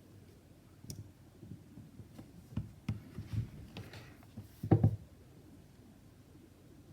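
Light clicks and small knocks from handling the phone and its small repair parts while the adhesive ring is fitted, ending in a quick double knock just before 5 s.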